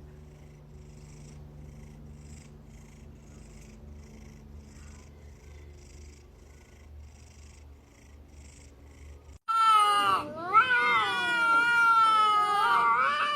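Domestic cat purring steadily and softly for about nine seconds. Then, abruptly, a much louder, long, wavering high-pitched cry with sliding pitch begins and carries on to the end.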